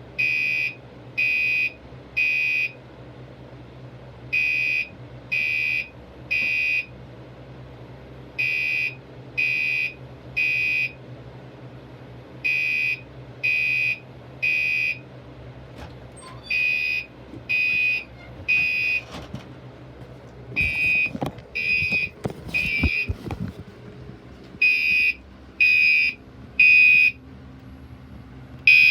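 Gentex Commander 3 fire alarm sounding in the temporal-three evacuation pattern: three short, shrill blasts, a pause, then three more, repeating about every four seconds. A few knocks and clicks come in the middle of the run.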